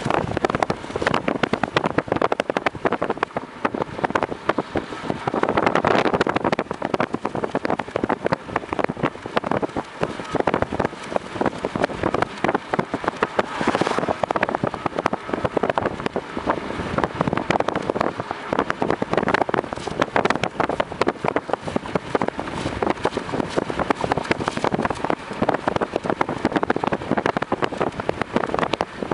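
Road and wind noise inside a moving car: a dense, steady rush full of rapid crackles, swelling briefly about six seconds in.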